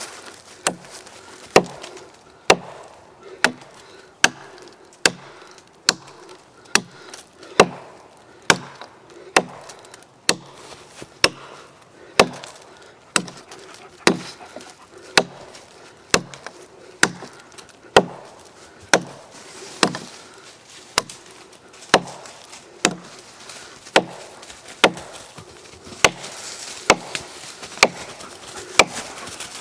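Gransfors Bruks Mini Hatchet chopping into a log: a steady run of sharp wooden chops, one a little under a second apart.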